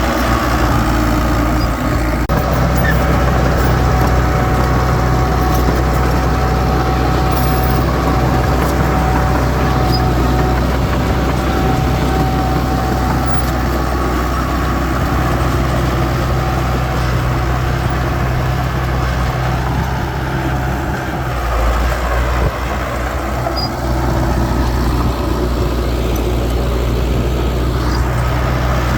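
Heavy diesel engine of earthmoving machinery (dump truck or bulldozer) running steadily, its low engine note constant throughout.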